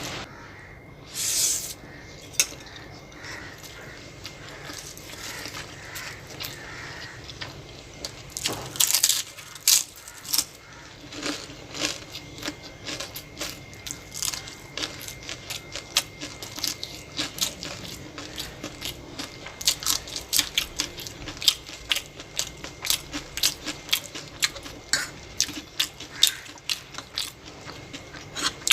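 Close-miked eating: chewing food with many quick wet clicks, a few a second, and a louder clatter about a second and a half in.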